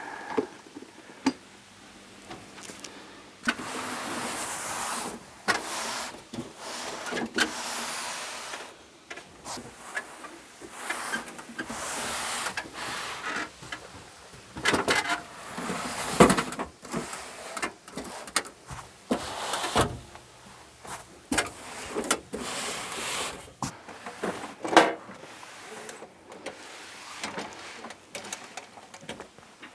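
Bottles and gear being moved around and set down in a carpeted pickup bed: irregular rustling and sliding with scattered clunks and a few sharper knocks.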